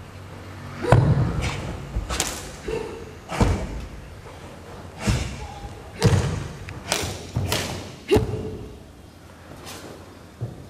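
Bajiquan form in full force: about a dozen sharp stamps and strikes at uneven intervals, the foot stamps landing low and heavy on the carpeted floor, others cracking like slaps of hand or sleeve, with a short ring of the large hall after each.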